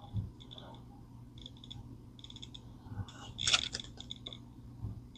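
Faint clicking and rustling of small plastic model kit parts being handled and sorted on a workbench, with a short cluster of sharper clicks about three and a half seconds in.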